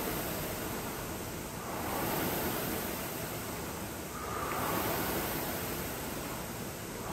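Concept 2 rowing machine's air flywheel whooshing, surging with each stroke about every two and a half seconds at a steady rowing pace.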